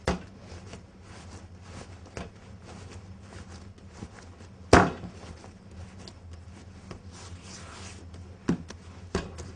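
Bread dough being kneaded by hand on a wooden worktop: a handful of soft thumps as the dough is pressed and slapped down, the loudest about halfway through.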